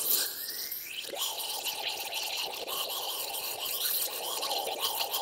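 Aerosol brake parts cleaner spraying steadily through its thin extension straw into a caliper bracket's slide-pin bore, the liquid hissing and splashing back out of the bore.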